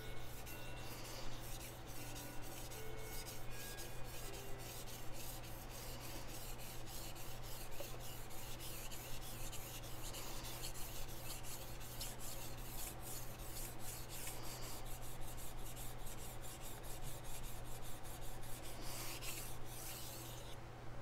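Steel chef knife blade scraped back and forth across a Chosera whetstone in quick, rhythmic strokes, grinding one side of the edge to raise a burr; the strokes stop shortly before the end.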